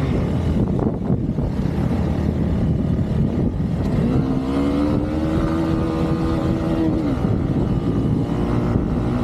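Off-road motorcycle engine running under way over a steady rumble with wind on the microphone. Its pitch climbs about four seconds in, holds for a few seconds, then drops back near the seven-second mark.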